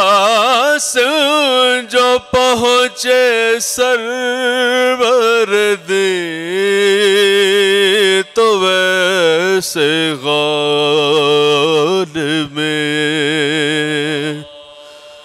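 Unaccompanied male soz (Shia elegy) chanting into a microphone, in long melismatic phrases with wavering, held notes and short breaths between them. From about ten seconds in, a steady lower note is held beneath the melody. The chanting stops about a second before the end.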